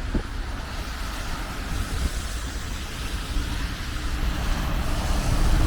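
City street traffic: a steady low rumble and hiss of passing vehicles, with an engine hum coming in and growing a little louder in the last couple of seconds.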